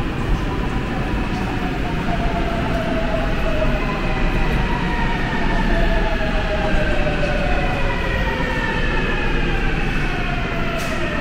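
Seoul Subway Line 8 train slowing into the station: a steady low rumble, with the whine of its electric motors falling slowly in pitch as it brakes.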